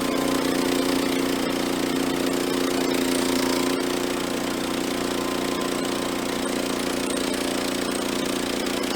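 Engine of an EZ Boardwalk Jr band sawmill running steadily at speed, its level easing slightly about four seconds in.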